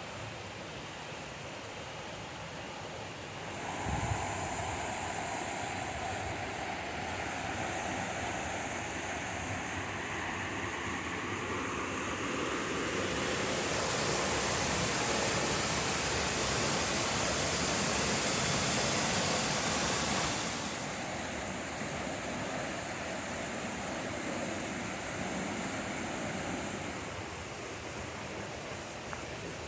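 A tall waterfall rushing steadily, growing louder and hissier for about seven seconds midway before settling back. A short thump sounds about four seconds in.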